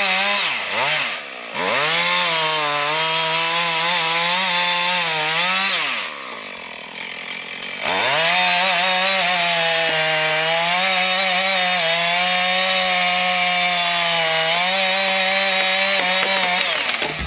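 Two-stroke Husqvarna chainsaw running at high revs, cutting through the trunk of a dead ash tree. It dips briefly about a second in and eases off to a lower, quieter run around six seconds in. It then revs back up and cuts steadily until it stops near the end, just before the tree falls.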